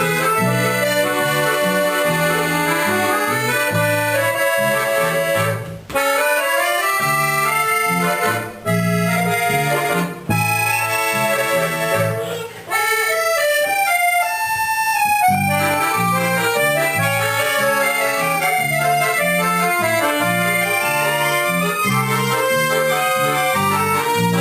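Ensemble of three accordions with bass guitar playing a melodic piece over a pulsing bass line, with a few brief breaks in the sound about a quarter to halfway through.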